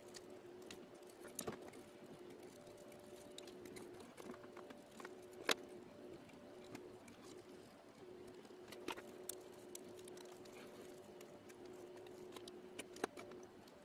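Sporadic light clicks and taps of thin laser-cut plywood case pieces being handled and fitted together, the sharpest about five and a half seconds in, over a steady faint hum.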